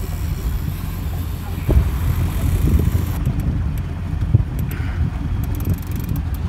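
Low, uneven rumble of a boat on the river, with wind buffeting the microphone. A few faint clicks come in the second half.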